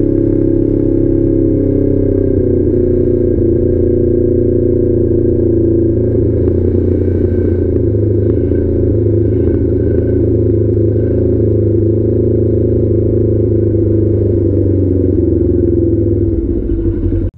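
A vehicle's engine running steadily while it drives slowly, heard from on board as a constant low drone.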